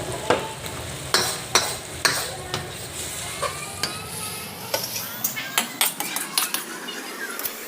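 Metal spatula stirring and clanking against a pan while vegetables stir-fry, with a light sizzle under the irregular knocks. A low hum underneath drops away about six seconds in.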